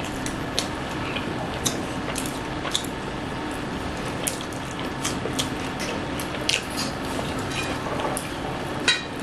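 Close-up eating sounds: scattered small wet clicks of chewing and lip smacking, with paratha torn by hand, over a steady background hum.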